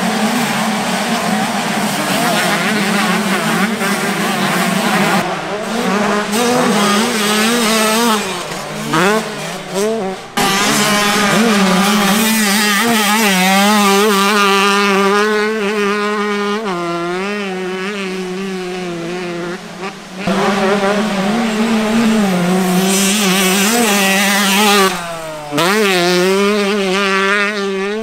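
125cc two-stroke motocross engines running wide open, revving high and dropping back repeatedly as the riders shift and roll off for corners. The engine note cuts abruptly from one bike to another a few times.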